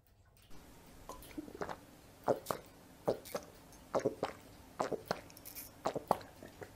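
A dog biting and chewing at the wire bars of its pen: sharp clicks and knocks of teeth on the bars, often two close together, coming about once a second.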